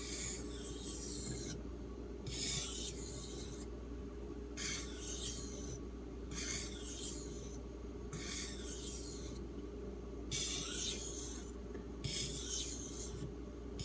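D2 steel knife blade drawn across a wet 3000-grit Arkansas water stone in edge-trailing stropping strokes: a gritty scraping, about seven strokes, roughly one every couple of seconds.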